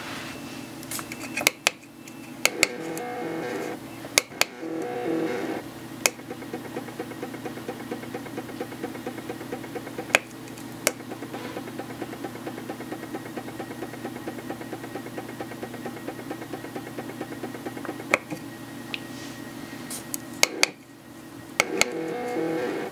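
Nema-17 stepper motor driven through an EasyDriver: a steady electric whine with a fast, even ticking, the pitch shifting in steps as the motor moves. Several sharp plastic clicks from the keypad buttons come now and then.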